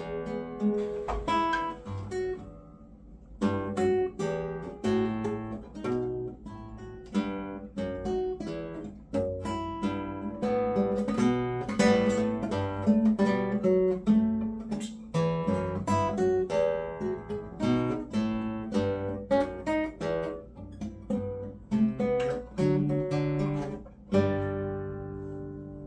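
Guitar being played: a quick run of picked notes and strummed chords, with a brief lull about two seconds in and a final chord left ringing near the end.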